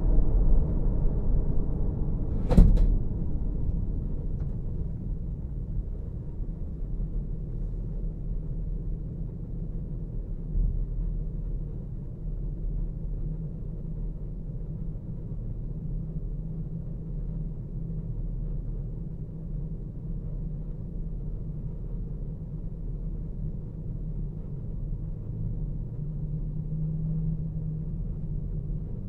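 Low road and engine rumble heard inside a car's cabin. It fades over the first few seconds as the car slows to a stop, then holds steady while the car idles at a red light. A single sharp click comes about two and a half seconds in.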